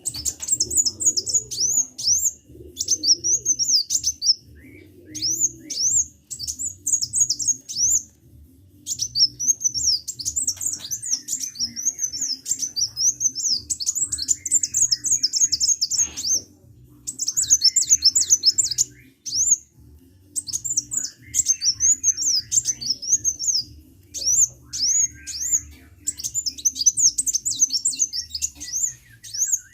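Sunbird, the bird sold as 'kolibri' in Indonesia, singing vigorously in rapid runs of high-pitched chirps. Each run lasts one to three seconds, with short pauses between.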